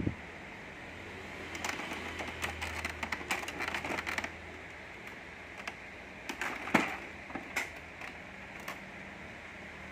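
Scattered plastic clicks and knocks from handling an Epson L550 printer as its scanner unit is lifted open, over a steady hiss. There is a cluster of clicks a couple of seconds in and another around seven seconds in, where the loudest knock falls.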